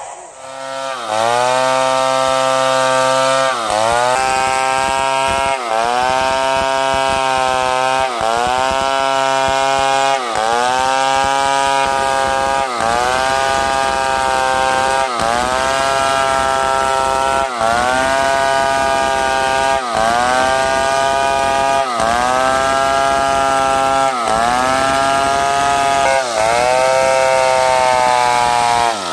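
Two-stroke chainsaw revving up from idle about a second in, then running at high revs while cutting wood. Its pitch dips briefly and climbs back about every two seconds.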